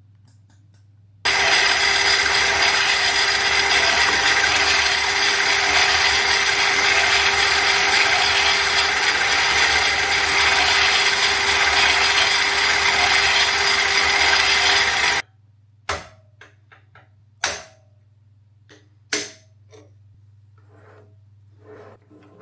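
Metal lathe turning a rotor shaft: a loud, steady machining noise with a fixed tone in it. It starts suddenly about a second in and cuts off suddenly some fourteen seconds later. After that come a few scattered clicks and knocks.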